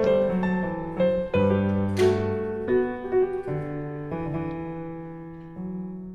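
Piano music: a gentle melody of single struck notes fading over a low bass line. There is a brief bright shimmer about two seconds in.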